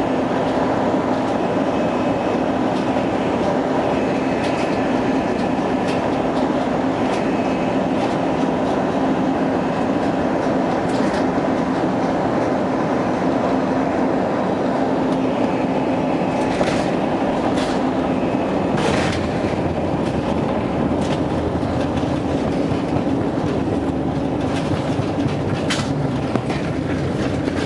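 Airbus airliner heard from inside the cabin, rolling on the ground after landing: a steady hum of the engines and cabin air, with a few sharp knocks as the wheels run over joints in the pavement.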